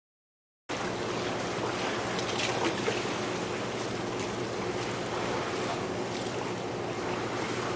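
Harbour-side ambience: water lapping and wind noise, with a faint steady low hum underneath. It starts abruptly under a second in, after a brief dead silence.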